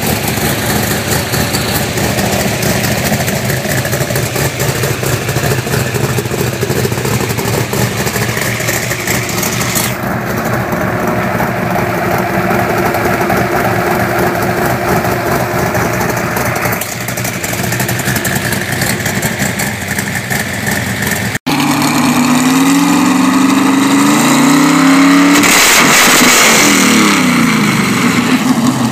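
1970 Ford Boss 302 small-block V8 running on an engine run stand through open headers, at a steady idle for the first twenty seconds or so. After a break it is revved several times, the pitch climbing and falling with each blip, and it is loudest near the end.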